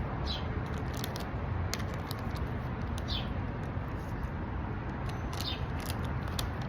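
A bird chirps three times, each a short falling chirp, a couple of seconds apart, over a steady low rumble and scattered faint clicks.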